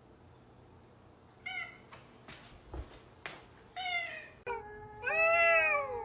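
Domestic cat meowing three times: a short meow about a second and a half in, another near four seconds, and a louder, longer one rising and falling near the end. A few soft clicks fall between the first two meows.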